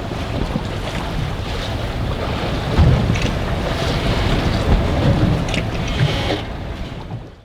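Strong gusty wind buffeting the microphone on an open boat, with waves splashing, and a couple of heavier low thumps about three and five seconds in. The sound fades out at the very end.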